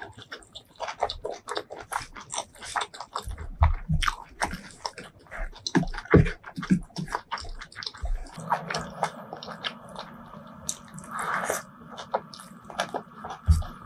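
Close-miked eating sounds: wet chewing, lip smacks and bites as a person eats beef tripe curry with rice and greens by hand, with some crunching.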